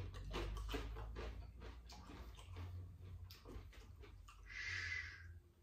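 Faint crunching and mouth clicks of someone chewing extra-crispy French fries, irregular and close to the microphone, with a short breathy hiss about four and a half seconds in.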